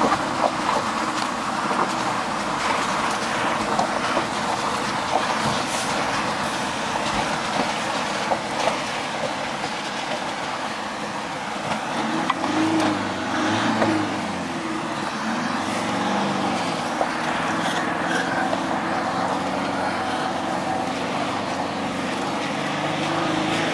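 Vehicle driving over a rough gravel track, heard from inside the cabin: the engine runs under load while the tyres crunch over loose stones, with many small knocks and rattles. The engine pitch rises and falls a few times past the middle.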